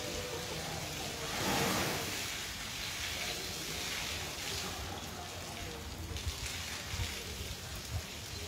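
Water pattering and splashing like rain as an elephant is bathed, swelling briefly about a second and a half in.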